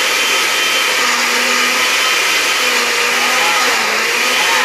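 Countertop blender running steadily, puréeing watermelon chunks into a slushy.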